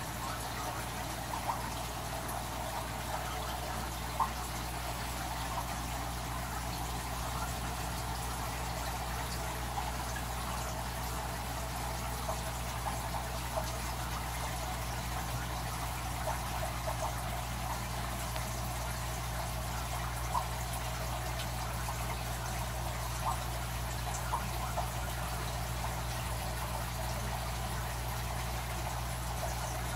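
Aquarium filtration water trickling and splashing steadily into a sump or filter section, with small scattered droplet ticks, over a steady low hum.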